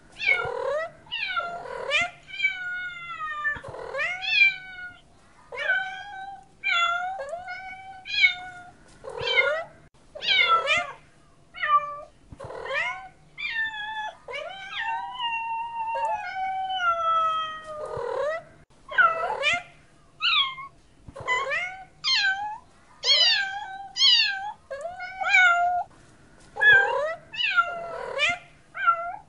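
A domestic cat meowing over and over, short meows about one a second, with one long drawn-out meow about fifteen seconds in.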